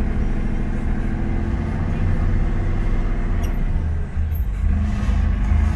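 JCB Fastrac 155 tractor's diesel engine running under load while towing a loaded trailer, heard from inside the cab. The engine note changes about four seconds in.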